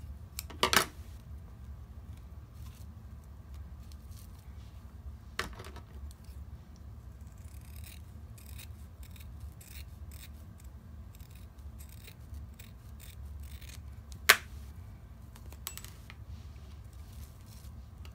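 Fabric scissors snipping through faux fur, a run of short cuts with two sharper, louder clicks, one shortly after the start and one about three-quarters through.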